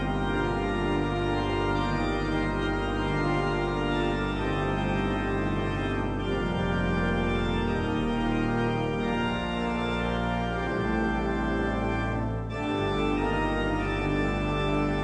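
Pipe organ playing the postlude: full held chords that change every second or so, with a brief break about twelve seconds in.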